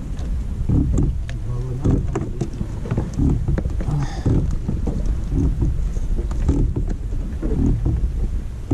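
Wind buffeting the microphone on a small open boat at sea, a steady low rumble with scattered light clicks and knocks.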